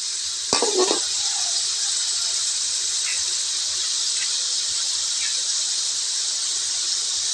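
Shrimp sizzling in hot oil in a wok, a steady high hiss. A metal spatula scrapes and knocks against the wok about half a second in.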